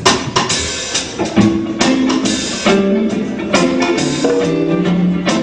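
Live rock band playing: drum-kit strikes and cymbal hits over sustained guitar and keyboard chords.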